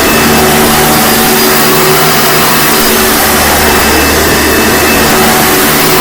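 1997 Hoover Sprint U4257-930 upright vacuum cleaner running, a loud, steady motor whine and rush of air.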